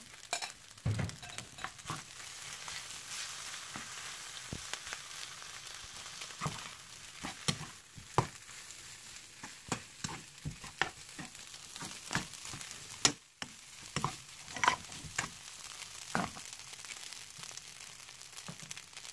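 Prawn fried rice sizzling in a hot non-stick pan while a metal spoon stirs and turns it, with irregular scrapes and taps of the spoon against the pan.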